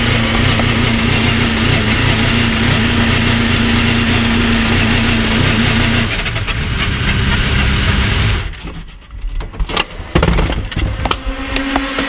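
Ligier JS P2's Nissan V8 engine running at a steady pitch, heard from inside the cockpit, dropping to a lower note about six seconds in and cutting off a couple of seconds later. Scattered clicks and knocks follow, with a new steady hum near the end.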